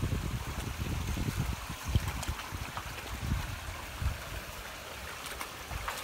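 A mastiff wading into a shallow creek, water sloshing and splashing around its legs, over a low uneven rumble on the microphone. The splashes come thicker near the end.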